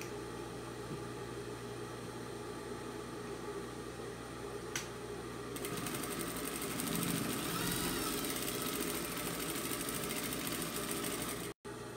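Industrial straight-stitch sewing machine stitching a seam through two layers of cotton fabric: the motor hums steadily, a single click comes about five seconds in, then from about halfway the needle runs at speed in a fast, even rhythm for about six seconds.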